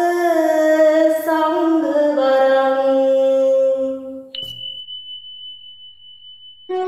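A woman chanting a Pali-Sanskrit Buddhist stotra verse to a slow melody, holding its closing notes, cuts off about four seconds in. A faint, steady high tone follows, and a horn-like wind instrument note begins right at the end.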